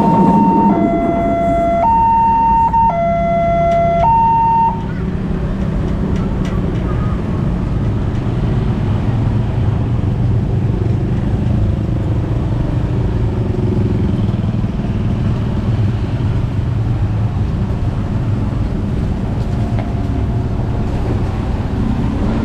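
Railroad level crossing's electronic two-tone alarm, switching between a high and a low tone about once a second, that cuts off about five seconds in. A steady low rumble carries on after it.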